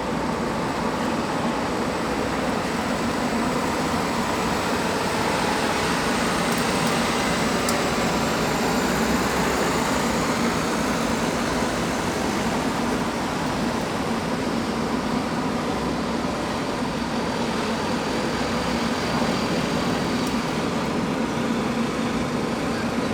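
Steady running noise of a queue of diesel trucks, an even engine drone with no single event standing out, and a faint high whine that slides slightly lower partway through.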